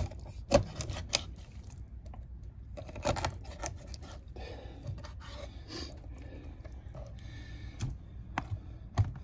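Knife cutting a carp crosswise into thin steaks: a handful of sharp knocks spread through it, with scraping and cutting noise between.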